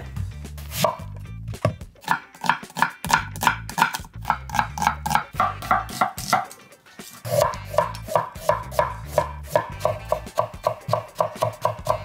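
Knife chopping quickly on a cutting board, about four to five even strokes a second with a short break midway. Background music with a bass line plays underneath.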